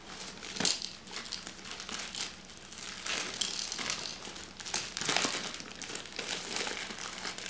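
Gift wrapping paper crinkling and rustling in irregular bursts as a present is unwrapped and the box is pulled free.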